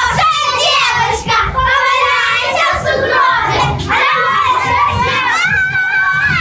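A group of children's voices shouting together at a high pitch, with a long held cry about a second before the end.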